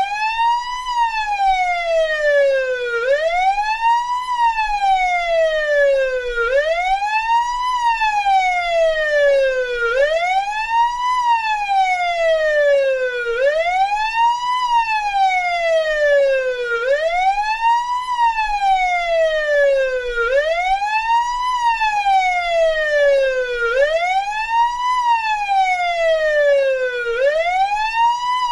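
Police siren sounding its wail: each cycle the tone rises quickly, then falls slowly, repeating steadily about every three and a half seconds.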